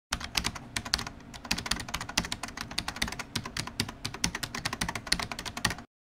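Computer keyboard typing: a quick, irregular run of key clicks that stops abruptly near the end, an edited-in typing sound effect accompanying an on-screen text card.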